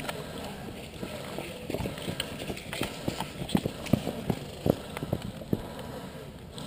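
Footsteps of someone running: uneven thuds a few times a second, starting about a second and a half in and fading out near the end.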